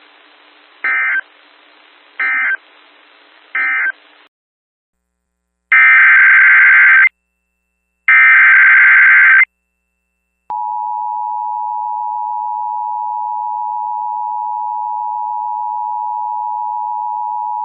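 Emergency Alert System SAME data signal on a weather radio: three short end-of-message bursts about 1.3 s apart over radio hiss. Then come two longer, louder header data bursts that announce the next alert, and about ten seconds in a steady attention tone near 1 kHz begins, signalling a warning.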